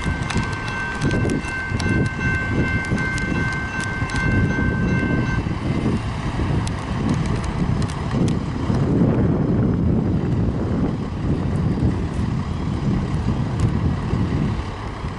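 Wind buffeting the microphone over the low sound of a distant BNSF EMD GP38-2 locomotive approaching. A steady high ringing sounds in the first five seconds and then stops.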